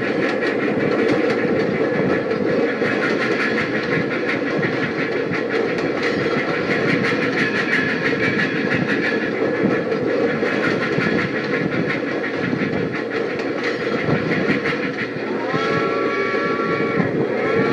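Toy train running along its track with a steady rumble and rapid fine clicking of the wheels on the rails. Near the end its whistle blows twice, a chord of several tones that bends up as it starts.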